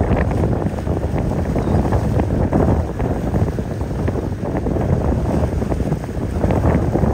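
Wind buffeting the microphone over open water, a steady, heavy low rumble mixed with the wash of choppy sea and boat noise.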